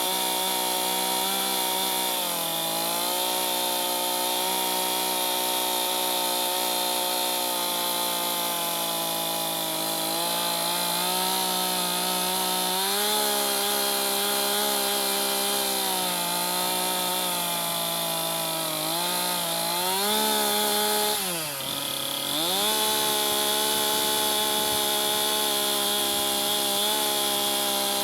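Chainsaw running continuously while cutting a log along a scribe line, its engine note sagging and recovering as the chain bites into the wood, with one deep drop about three quarters of the way through.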